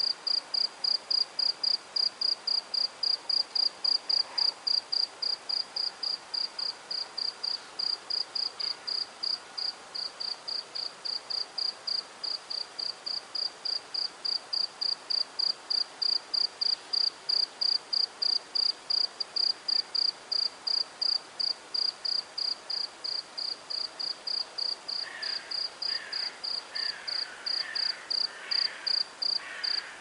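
A cricket chirping steadily, about three high chirps a second. Near the end, short bird calls join in.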